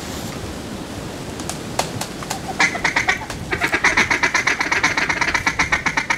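Duck call blown in a fast feed chatter: after a few single clucks it breaks, about two and a half seconds in, into a quick, even run of about nine clucks a second, calling to ducks circling overhead.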